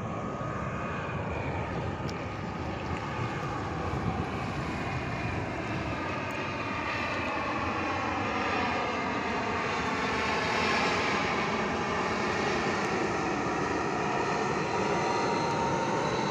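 Twin-engine passenger jet flying low overhead on landing approach, its landing gear down. The steady engine roar grows gradually louder, with whining tones that slide in pitch as it passes.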